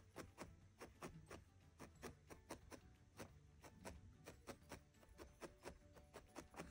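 A barbed felting needle stabbing repeatedly into a small wad of core wool on a wool felting pad. The faint quick pokes come at about four a second as the wool is firmed and shaped into an oval.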